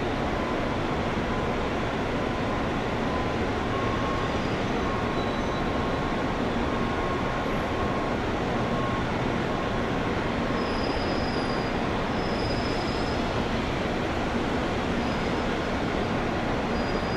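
Jet airliner engines running: a steady roar with a faint high whine over it.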